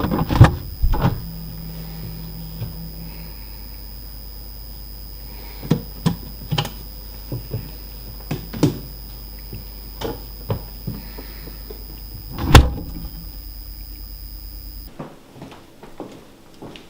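Scattered knocks and clunks, like doors and cupboards being opened and shut, over a steady hum that cuts off suddenly about 15 seconds in. The loudest knocks come at the very start and about three-quarters of the way through.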